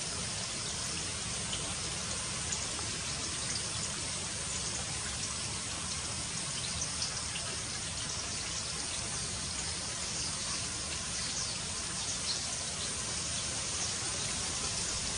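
Steady hiss of running water, like a nearby trickle or stream, with faint high ticks scattered through.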